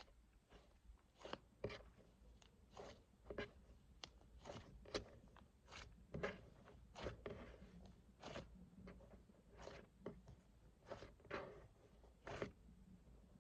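Cloud slime being pressed and squished by hand, giving soft crunchy crackles one after another, about one or two a second at an uneven pace.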